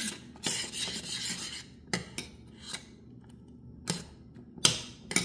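A metal spoon scraping and clinking against a stainless steel saucepan while stirring thick praline sauce. A scrape of about a second comes first, then several sharp clinks, the loudest near the end.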